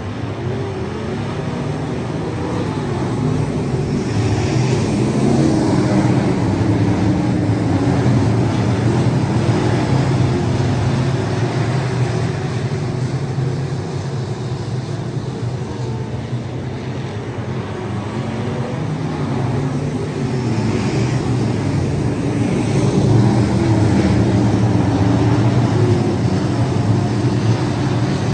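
A field of dirt-track race cars running at speed on the oval, engines blending into one loud, steady drone that swells twice as the pack comes around past the listener.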